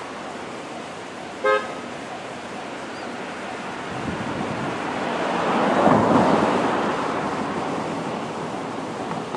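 A short, pitched horn toot about a second and a half in. Then a vehicle goes by, its noise swelling to a peak about six seconds in and fading away.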